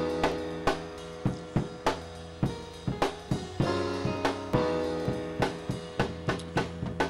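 Background music: a drum kit beat of snare, kick and cymbals over held chords.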